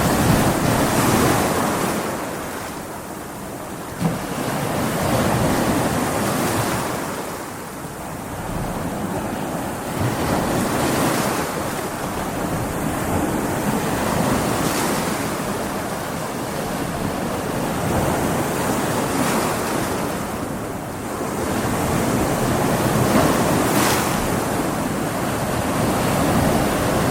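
Stormy sea: waves breaking and surging in swells that rise and fall every four to five seconds, with wind.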